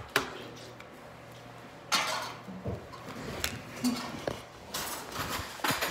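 A few knocks and clatters of things being handled on a hard tabletop, with brief rustling between them.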